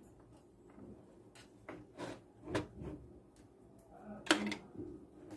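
Scattered clicks and knocks of computer hardware and cables being handled, about five separate taps with the sharpest knock roughly four seconds in.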